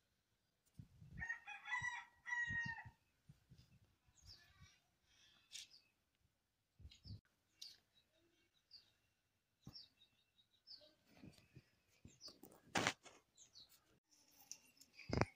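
A rooster crows about a second in, one drawn-out call in two parts. Faint short chirps and clicks follow, then a couple of sharp knocks near the end.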